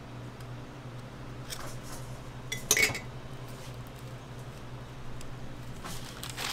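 Metal spatula scraping Nutella across a waffle, then a sharp metal clink about two and a half seconds in. Paper wrapper rustling near the end.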